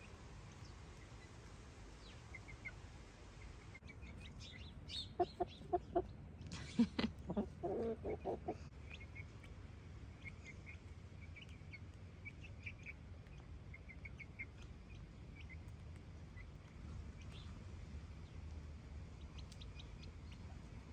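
Chickens clucking as they forage: a run of short clucks about five to nine seconds in, the loudest near seven seconds, with faint high chirps on and off through the rest.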